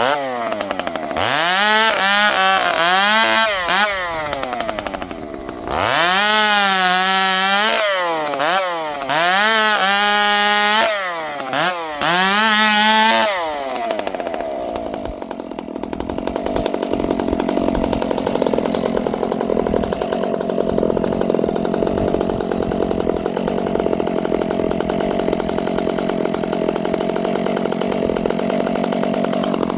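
Dolmar two-stroke chainsaw revving up and down repeatedly, its pitch rising and falling over and over; about thirteen seconds in it settles into a steady, lower pitch as it cuts through wood.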